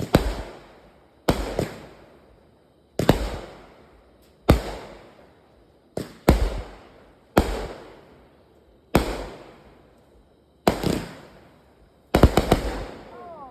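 Consumer firework cake, a 'Heavy Hitter', firing aerial shots: a loud bang roughly every one and a half seconds, sometimes two close together, each dying away over about a second.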